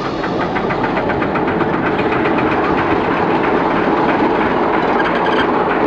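Vulcan railcar RM 50 passing slowly at close range, its diesel engine running with a fast, even clatter that grows slightly louder.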